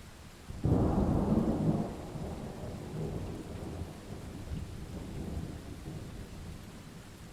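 A thunderclap breaks in suddenly under a second in, loudest for about a second, then rolls on as a rumble that fades over the next few seconds. Steady rain falls throughout.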